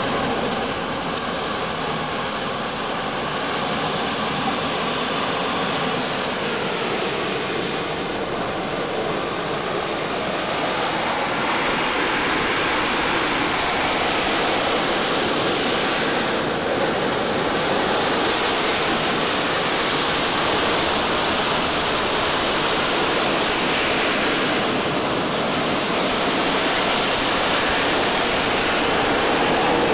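Industrial vacuum system's suction nozzle sucking up wet concrete rubble and water left by hydrodemolition: a steady rushing noise that grows a little louder about twelve seconds in.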